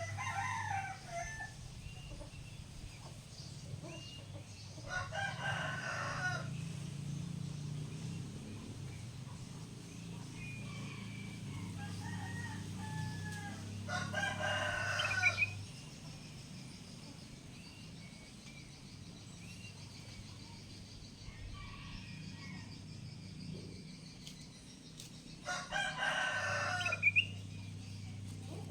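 A rooster crowing three times, about ten seconds apart, with short faint bird chirps between the crows and a low steady hum underneath.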